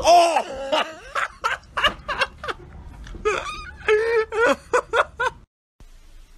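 A person laughing in a run of short, high, breathy bursts, cut off suddenly about five and a half seconds in.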